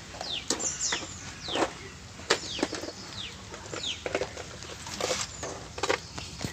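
Birds calling with repeated short chirps that sweep down in pitch, over irregular sharp metal knocks and clunks, about one a second, as a 10 mm socket wrench is handled and fitted on engine bolts.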